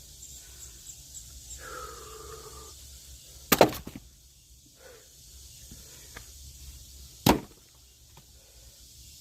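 Two sharp strikes of an axe splitting logs, about four seconds apart, the first followed by a couple of quick smaller knocks.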